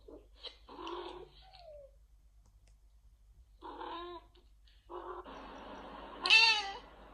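Cat meows: a few short meows, then a much louder, longer meow about six seconds in.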